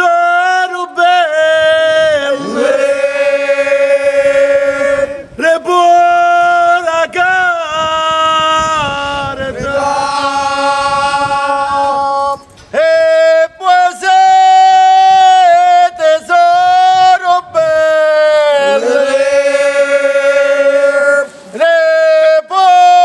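Men singing a slow Marian hymn unaccompanied, in long held high notes with sliding ornaments between them. The phrases are broken by short breaths.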